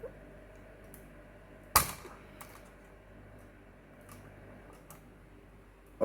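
Small metal screwdrivers clicking against a graphics card's parts as it is pried apart, with one loud, sharp snap a little under two seconds in and a few fainter ticks.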